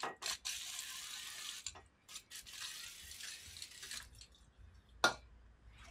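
Aerosol spray can hissing in two bursts, the first about a second long and the second about two seconds, with a few sharp clicks of metal parts being handled, the loudest about five seconds in.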